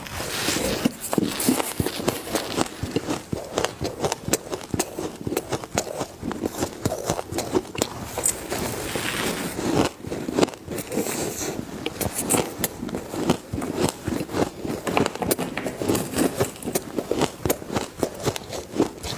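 Ice being bitten and chewed: a steady run of crisp crunches and crackles with no pause.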